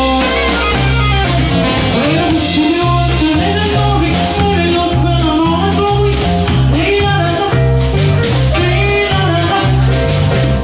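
Jazz band playing a song: a bass line stepping in a steady rhythm under a wavering melody line.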